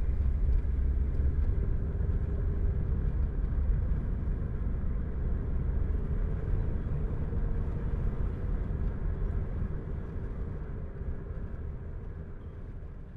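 Steady low rumble of ambient background noise with a faint steady hum in it, fading gradually over the last few seconds.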